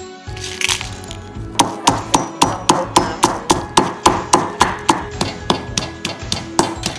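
Wooden pestle pounding red chillies into curry paste in a heavy stone mortar: steady, rhythmic strikes at about three a second, starting about a second and a half in.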